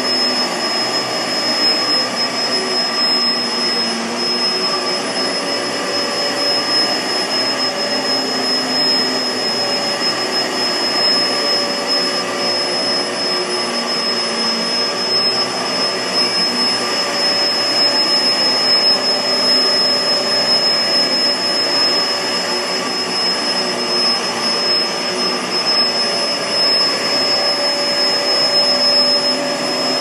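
Kenmore CrossOver Max bagless upright vacuum cleaner running steadily: the rush of its motor and airflow, with a constant high-pitched whine over it.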